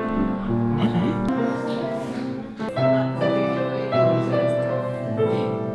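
Piano playing chords and a melody, the notes held and changing about once a second.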